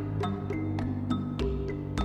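Background music: repeated struck notes, about three a second, ringing over a sustained bass.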